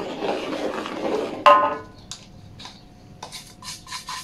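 Powder poured from a bowl into a metal wok with a soft rushing hiss. About a second and a half in comes a sharp clink that rings briefly, then a few light ticks and scrapes of a spoon in the wok.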